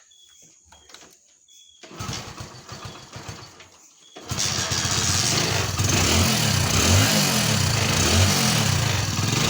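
Hero Passion Pro's single-cylinder engine being cranked for about two seconds, then catching about four seconds in and running, revved up and down several times. It runs with its newly fitted timing chain kit.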